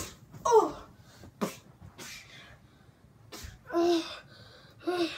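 A voice in short non-word bursts, some falling in pitch, with a few sharp clicks and breathy puffs between them.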